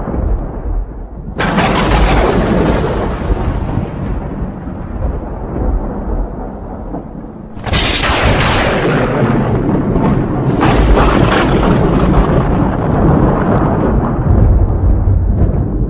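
Thunder: three sudden cracks, about a second and a half in, near eight seconds and about ten and a half seconds in, each rolling off into a deep rumble that runs on between them.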